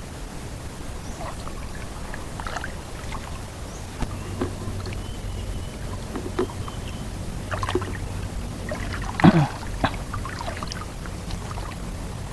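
Water sloshing and splashing lightly around someone wading waist-deep in a reservoir, with scattered small splashes and one louder brief sound about nine seconds in.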